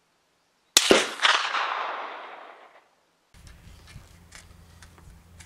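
A single rifle shot from an M1A National Match rifle in .308: a sharp crack under a second in, then an echo that rolls away over about two seconds. Faint ticks and a low hum follow near the end.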